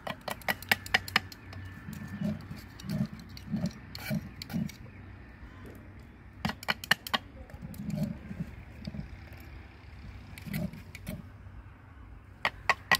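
Thick wheat dalia bubbling in a pot, with irregular low plops about every half second. Three quick clusters of four or five sharp clicks come near the start, about halfway through, and near the end.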